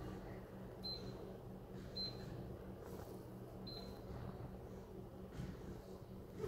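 Royal Vision bottle-drop vending machine keypad beeping as its buttons are pressed: three short high beeps one to two seconds apart, with a fourth at the very end, entering settings for calibration. A steady low hum from the machine runs underneath.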